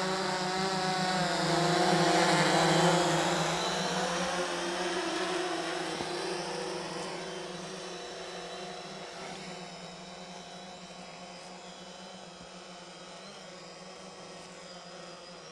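Yuneec hexacopter drone's six propellers buzzing in flight. The buzz grows louder, peaks about three seconds in, then fades steadily as the drone moves away.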